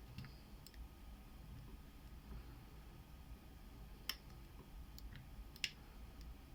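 Small metallic clicks and ticks of a lock pick and tension wrench working the pins of a Yale Y110/35 brass padlock: a few sparse clicks, the two loudest about four and five and a half seconds in, over a faint steady hum.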